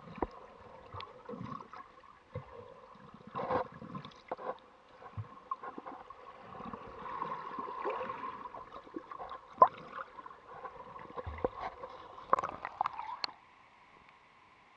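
Water sounds heard by a camera held underwater in a shallow, kelp-filled sea pool: irregular gurgling and bubbling with scattered sharp clicks and knocks. Near the end the camera comes out of the water and the sound drops suddenly to a faint steady hiss.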